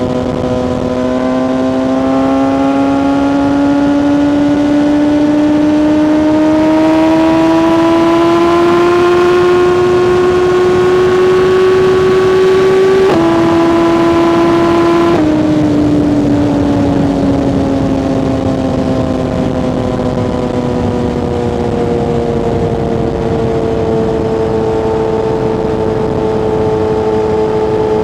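BMW S1000RR inline-four engine under way, its pitch climbing steadily as the bike pulls. About halfway through the pitch steps down abruptly twice, then falls gradually as the rider eases off, and holds steady near the end.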